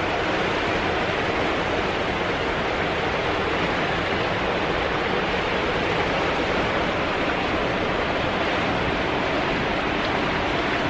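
Fast river water rushing through rapids: a steady, even rush of water noise.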